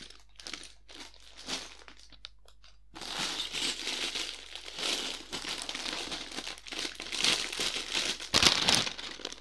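Sealed plastic bags of LEGO pieces crinkling and crunching as they are picked up and shuffled, with the loose bricks inside rattling. There are scattered light ticks at first, then steady crinkling from about three seconds in, with one louder crunch near the end.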